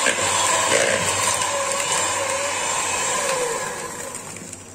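Philips electric hand mixer running steadily, its beaters whipping butter and powdered sugar in a plastic bowl. The motor sound fades out near the end.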